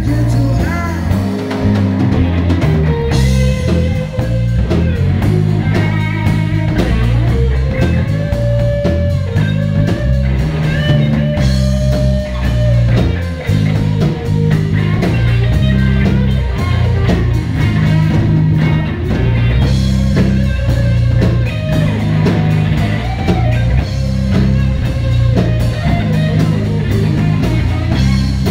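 Live blues-rock band playing an instrumental passage: an electric guitar carries sustained, bending lead lines over drums and a steady low end.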